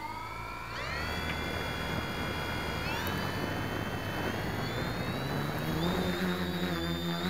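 Quadcopter's electric motors and propellers spinning up from rest on the ground. The whine rises about a second in, steps higher about three seconds in and climbs again near the end as the quad gets moving.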